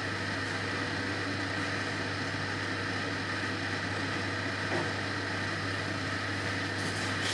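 Steady low mechanical hum with an even hiss over it, and one soft knock about five seconds in.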